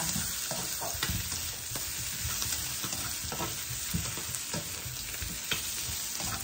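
Potato chunks sizzling in butter in a stainless steel pan, stirred and turned with a spatula that scrapes and taps against the pan again and again over a steady frying hiss.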